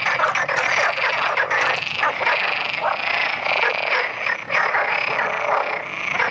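A chorus of many male frogs croaking at once, their calls overlapping densely without a break: breeding-season calls made to attract females.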